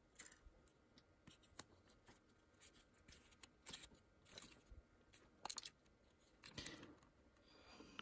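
Faint, scattered clicks and short scrapes of small plastic camera parts being handled and pried at, with quiet gaps between them, as a DJI Pocket 2's battery and casing are worked loose.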